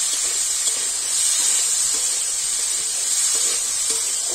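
Small whole potatoes and green chillies sizzling steadily in hot oil in an iron karai.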